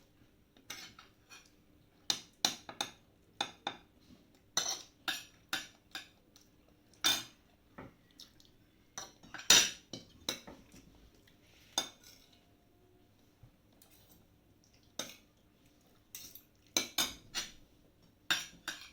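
Metal cutlery clinking and scraping against plates while people eat, in irregular sharp clinks with brief ringing.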